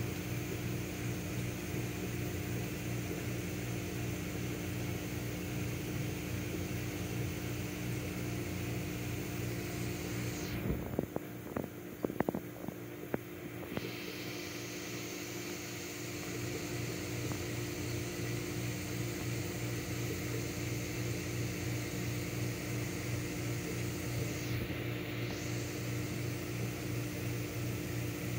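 Steady electrical hum and hiss of aquarium equipment running, a low buzz with several fixed tones. A few short knocks and clicks come about eleven to thirteen seconds in.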